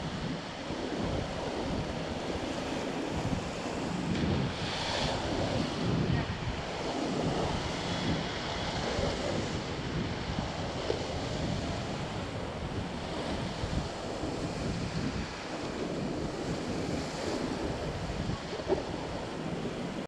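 Fast river water rushing around an inflatable raft, with wind buffeting the microphone. A short knock near the end.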